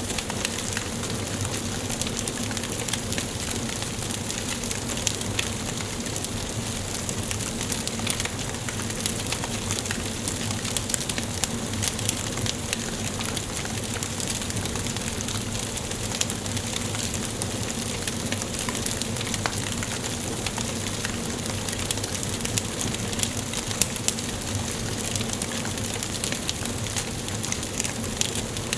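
Wood fire burning in a fireplace: a steady hiss of flame with dense small crackles and occasional louder pops from the burning logs.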